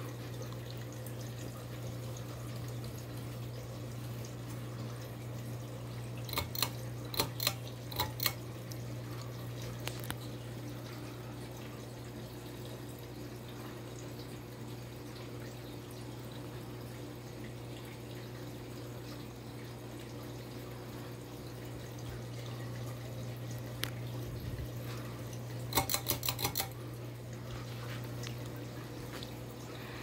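Crown 52-inch ceiling fan running with a steady low motor hum. Two brief clusters of sharp clicks sound over it, a few about six to eight seconds in and a quick run of them near the end.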